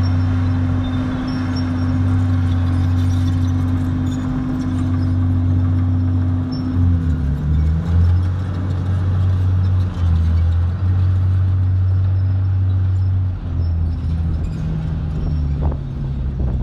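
Komatsu D51PX crawler bulldozer's diesel engine running, a loud steady low drone whose pitch shifts several times from about seven seconds in.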